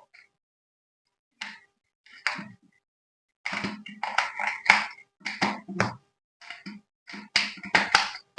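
Hands handling the toy and its packaging: a run of irregular clicks, taps and rustles in short bursts, denser from about halfway in.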